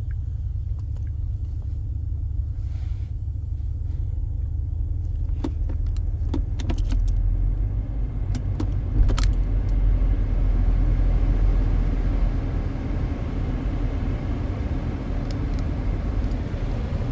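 Steady low rumble of a car's air conditioning blower running on high inside the cabin, stuck on because the new head unit won't switch it off, with a few light clicks near the middle.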